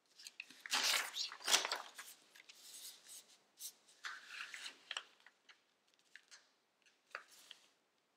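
Sheet of origami paper rustling and crinkling as it is handled, turned over and creased by hand, loudest about a second in, then lighter scrapes and soft crease clicks.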